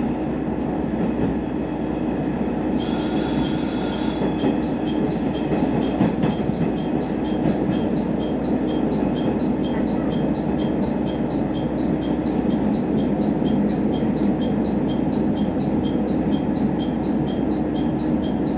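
Sanriku Railway diesel railcar running, heard from inside the passenger cabin: a steady rumble and hum. About three seconds in there is a brief high squeal, and after it a regular high-pitched ticking of about three a second.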